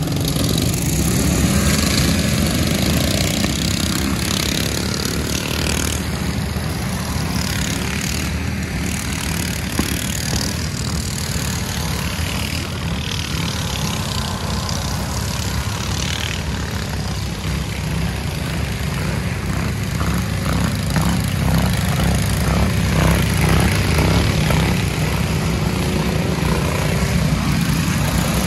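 Several riding lawn mower and garden tractor engines running at once, a dense, loud engine drone.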